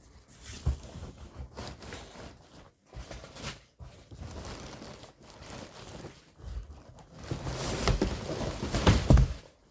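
Packaging and printer parts being handled during an unboxing: irregular rustling with scattered light knocks and clicks, busier and louder near the end.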